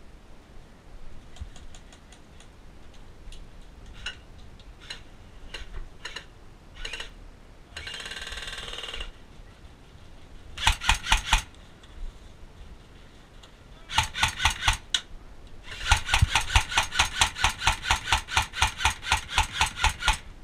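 Airsoft electric guns firing: scattered single shots and short rattles in the first half, then close, rapid full-auto bursts about ten seconds in and around fourteen seconds, and a long burst of about four seconds near the end.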